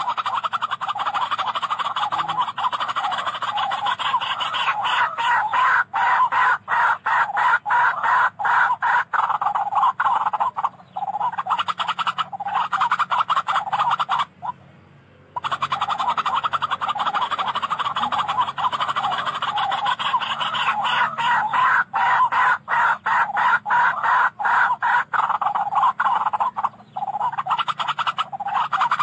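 Barred rail (tikling) calling: long runs of rapid, harsh repeated notes, in two bouts with a short pause about halfway through.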